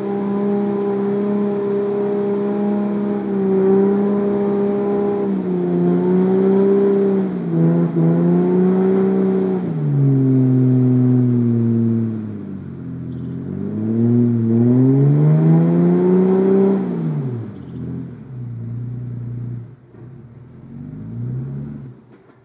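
Toyota Land Cruiser 80 Series engine pulling under load up a steep, rutted clay climb. It holds steady revs at first, then revs rise and fall again and again as the throttle is worked, and near the end the revs drop and the engine sound eases off.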